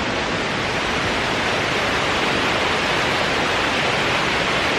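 Steady rushing of a waterfall, an even wash of falling water close by.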